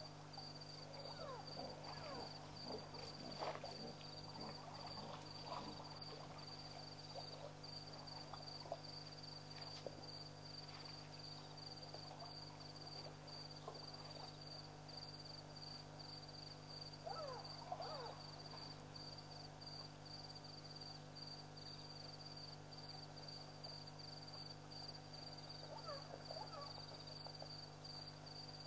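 Night chorus of crickets: a steady, high, rapidly pulsing chirr over a constant low hum, with a few short scattered sounds in the first few seconds, about seventeen seconds in and near the end.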